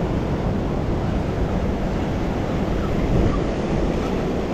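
Steady wind buffeting the microphone, with choppy water washing against the breakwater rocks.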